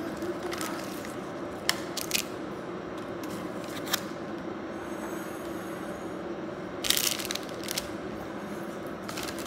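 Plastic instant-noodle packets crinkling and rustling as they are handled, with a few short clicks and a longer rustle about seven seconds in, over a steady low hum.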